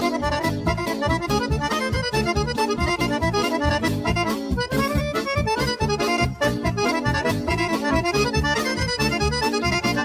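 Fast Serbian kolo folk dance tune led by accordion, with a quick, steady beat.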